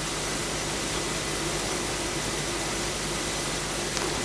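Steady room noise: an even hiss with a low hum, and one faint click near the end.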